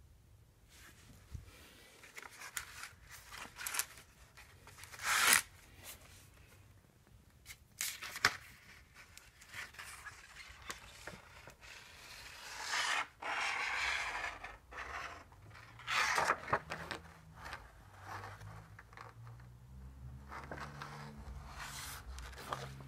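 Handling noise of a phone held against a plastic animation cel: irregular scraping and rubbing with sharp crackles, the loudest about five and eight seconds in, and a longer rasp around thirteen seconds in.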